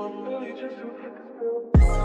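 Background music: a soft melodic passage, then about 1.75 s in a louder hip-hop-style beat with heavy bass kicks comes in.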